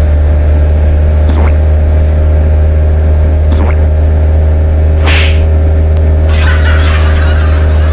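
Truck engine droning steadily as heard inside the cab while driving, a loud low hum. A few brief swishes come through it, with a short rustling patch near the end.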